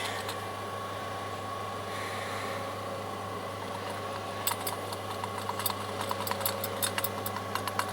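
A steady low mechanical hum with a thin high tone runs throughout. From about halfway in comes a run of light, quick clicks and taps: small carburetor parts and tools being handled during disassembly.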